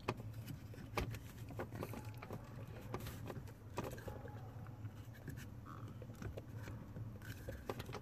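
Brushed aluminium pedal cover being worked by hand onto the clutch pedal of a VW Mk4: light clicks, knocks and scraping of the metal-and-rubber cover against the pedal pad. The sharpest clicks come about a second in, around three to four seconds in and near the end.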